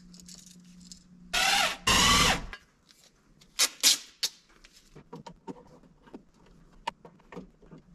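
Cordless drill driving screws in two short bursts about a second and a half in, followed by sharp clicks and small ticks of screws and a screwdriver as a switch plate goes onto the electrical box.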